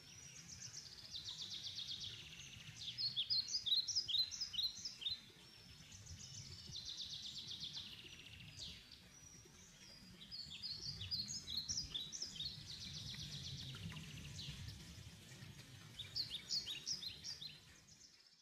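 Jungle ambience track: birds calling in fast high trills and clusters of short sharp chirps, repeating in turns, over a faint low rumble.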